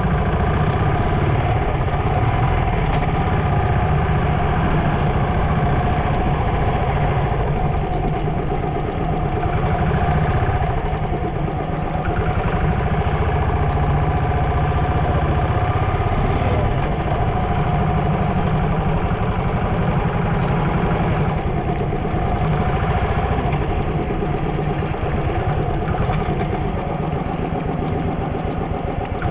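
A vehicle engine idling steadily, a continuous low hum with no change in speed.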